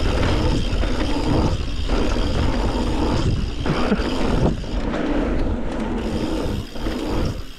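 A mountain bike rolling fast over a rough dirt trail: wind buffeting the microphone, tyres on dirt and rock, and the bike rattling over bumps, with a few brief lulls.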